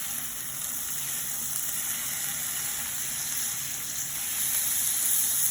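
Yakiniku meat sizzling steadily on a hot grill. The slices are still partly frozen and stuck together, so they sear on the underside.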